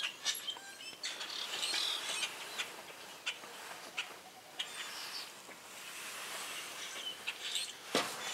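Faint bird chirps in the background, with a few soft clicks and knocks scattered through; the loudest knock comes near the end.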